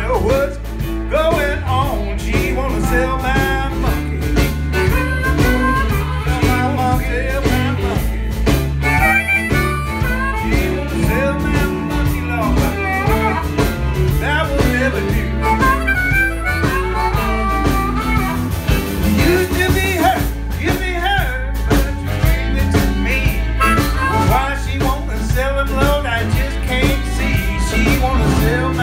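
Harmonica solo played through a vocal microphone, its notes bending up and down, over a live blues band: electric guitars, bass guitar and a drum kit keeping a steady beat.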